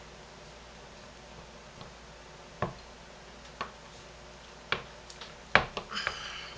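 Knife cutting through a hard block of homemade lye soap that is not superfatted, its blade knocking on the cutting board. There are a few sharp taps roughly a second apart, the loudest near the end, followed by a brief squeak.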